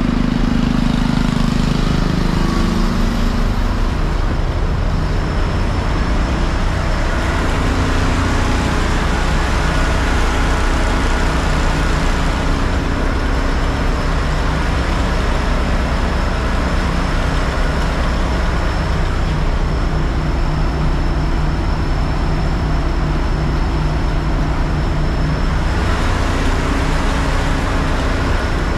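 Large fire truck engine running steadily, with a thin high steady whine joining a few seconds in.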